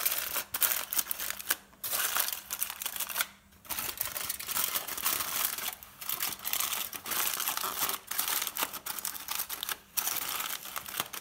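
Aluminium foil crinkling and crackling as hands fold and crimp it shut into cooking parcels, in uneven runs with a few short pauses.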